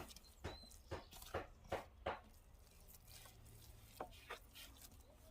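A series of sharp knocks: about six in quick, uneven succession in the first two seconds, then two more about four seconds in.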